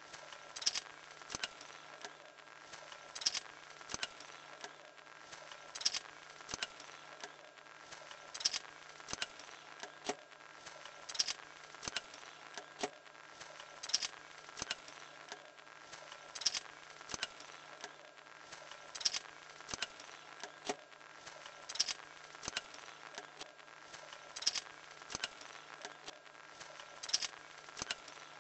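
A small motor driving a wooden stick-built drawing machine: a steady low hum with light clicks and ticks from the moving linkage and pencil arm. A stronger click comes about every two and a half seconds, with smaller ticks between.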